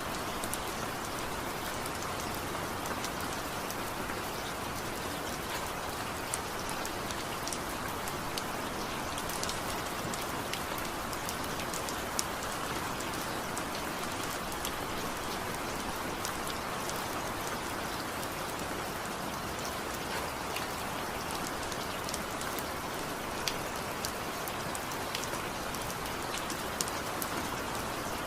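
Steady rain falling, a continuous hiss with many scattered drop ticks and small splats on a surface, and no thunder.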